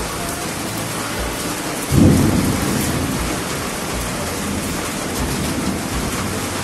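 Steady rain falling, with a low rumble of thunder about two seconds in that starts suddenly and fades away slowly.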